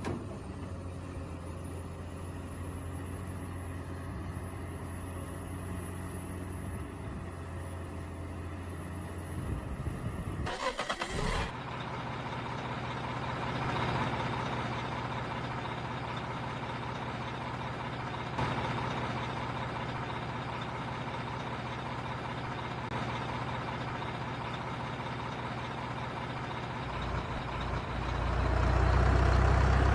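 Radio-controlled construction vehicles running with a steady engine-like hum. There is a brief disturbance about a third of the way in, then a noisier hum, and it gets louder near the end.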